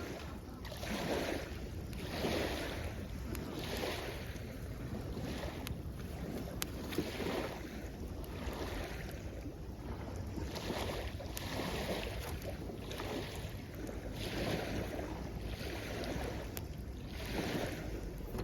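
Small waves washing in at the shoreline in soft swells about every second or so, with a wood campfire giving scattered light crackles and pops, over a steady rumble of wind on the microphone.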